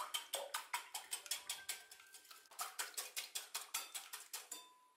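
Wire whisk beating raw eggs in a glass bowl, its wires clinking rapidly against the glass at about five or six strokes a second, stopping shortly before the end.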